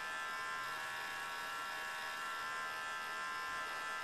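A small electric motor running steadily with an even, high buzzing whine that does not change.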